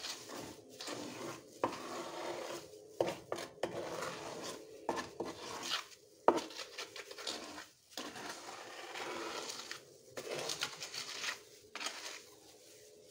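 Small steel trowel scraping and dabbing wet cement mortar onto a plastic-covered mould in irregular strokes, with several sharp clicks of metal on the mortar pot or board.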